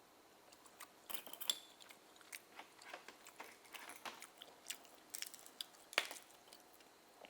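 Close-up chewing while eating steamed oysters: a run of short, sharp mouth clicks and smacks, the loudest about a second and a half in and again near six seconds.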